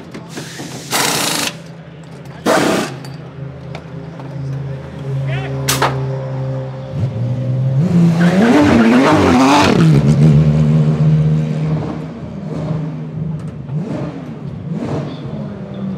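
Porsche 991.2 GT3 R's 4.0-litre flat-six idling during a pit stop, with two short bursts of pneumatic wheel guns in the first three seconds. About eight seconds in, the engine is revved in several quick blips, the loudest part, then settles back to idle.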